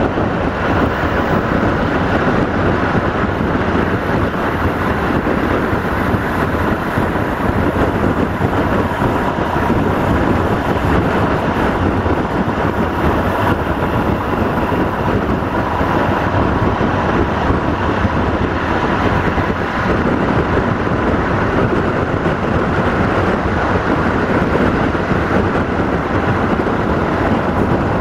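Steady rolling noise of a passenger train running at speed, with wind buffeting the microphone held out of an open coach window. A faint steady whine sits in the noise throughout.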